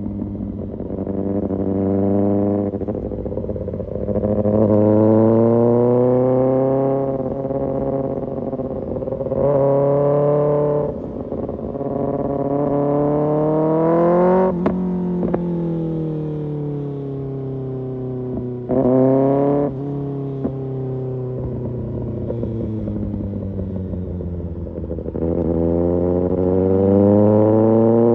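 Kawasaki ZX-6R inline-four engine through an Arrow Pro Race exhaust, revving hard through the gears. The pitch climbs and drops suddenly at each upshift. In the middle it falls away with a few sharp cracks and a quick rev blip on a downshift, then winds out again near the end.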